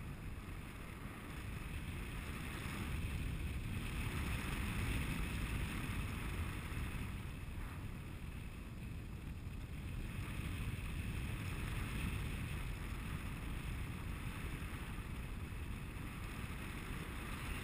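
Wind rushing over a body-mounted camera microphone in paraglider flight: a steady low rush of airflow that swells and eases slightly every few seconds.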